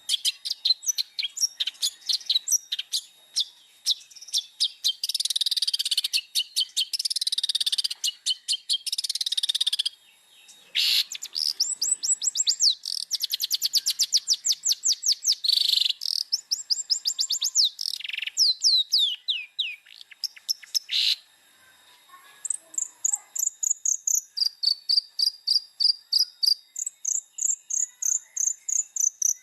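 Long-tailed shrike (cendet) in full song: fast, varied runs of rapid repeated high notes, chattering trills and sliding whistles. There are short pauses about a third of the way in and again past two-thirds.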